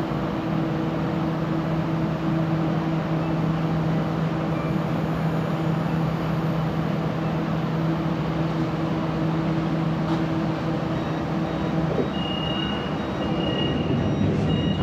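Interior running noise of a Siemens Inspiro metro train: wheels rolling on the rails under a steady traction-motor hum. The hum stops about twelve seconds in as the train slows into the station. Near the end, a high beeping tone repeats several times.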